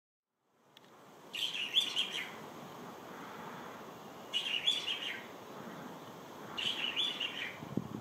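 Mauritius bulbul calling three times, each call a short cluster of several quick notes, about every two and a half to three seconds.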